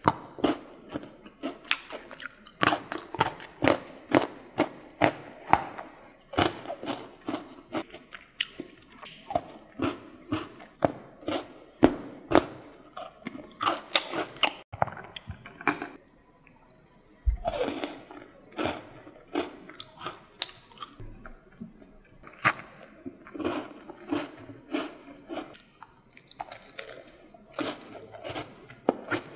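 Close-miked crunching and chewing of chocolate-coated biscuit sticks: a dense, irregular string of crisp bites and snaps with mouth sounds.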